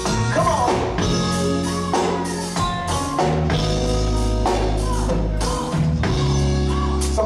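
Live soul-funk band playing: drum kit, bass guitar holding long low notes, guitar and keyboards, with a male voice singing over it near the start and near the end.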